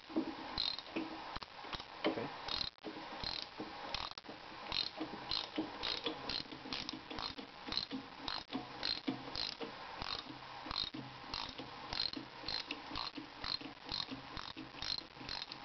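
Socket wrench ratchet clicking in a steady rhythm, about two to three clicks a second, while it turns off a 5/8-inch reverse-threaded bolt on the end of the planer head shaft.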